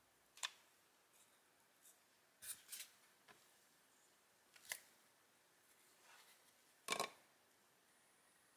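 Near silence broken by about half a dozen short, light taps and clicks as wax strips, a silicone texture mold and a styrofoam block are handled on a cutting mat. The sharpest comes about seven seconds in.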